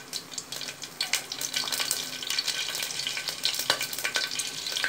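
Green chillies, fennel seeds, cinnamon and cloves frying in hot sesame oil in a pressure cooker: a steady sizzle with many small crackles and pops.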